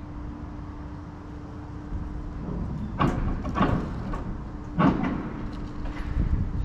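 Steady low hum over a rumble, broken by three dull thumps: two close together about three seconds in and a louder one near five seconds.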